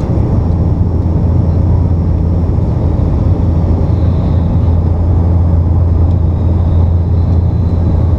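Steady low drone of a Bombardier Dash 8 Q400's six-bladed propellers and turboprop engines, heard inside the cabin from a window seat beside the propeller during the descent to land.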